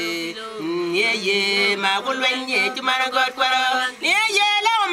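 Voices singing an African song together in harmony. A short break comes just before the end, then a new, louder phrase begins.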